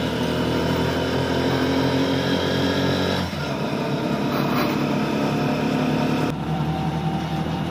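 Motorcycle engine of a three-wheeled motorcycle taxi running under way, heard from the passenger cabin, its note changing about three seconds in and again about six seconds in.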